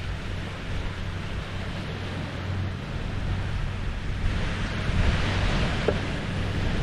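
Small lake waves lapping and washing onto the shore, one wash swelling louder about four seconds in, with wind buffeting the microphone.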